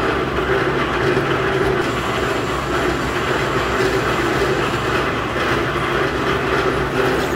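Tyre bead removal machine running, its motor-driven, gear-driven rollers pulling a tyre's sidewall through, a steady mechanical running noise with a low hum.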